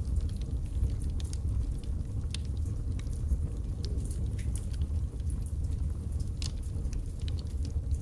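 Wood logs burning in a fireplace: a steady low rumble of flame with sharp crackles and pops at irregular intervals.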